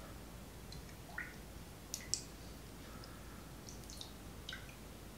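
Faint drips and small clicks as molasses water drips from a plastic measuring cup back into a glass bowl: a small plop about a second in, two sharp clicks around two seconds, and a few faint ticks later.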